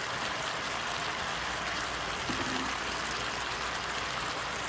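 Chicken strips with onion and bell pepper sizzling steadily in an electric skillet under melting cheese slices.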